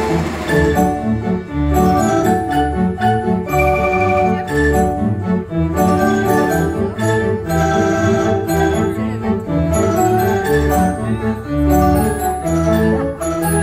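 Kimball theatre pipe organ playing, a steady stream of chords and melody notes that change several times a second.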